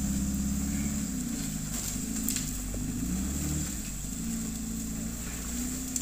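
Off-road 4x4's engine idling while the vehicle sits stuck deep in a creek, its pitch wavering slightly up and down, still running rather than stalled.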